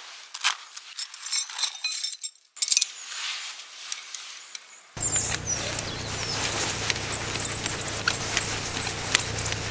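A knife scraping and shaving dry twigs for fire kindling, with a quick run of scrapes and snapping clicks in the first couple of seconds, then fewer, smaller taps. About halfway a steady hiss with a low hum sets in suddenly, with only a few faint ticks over it.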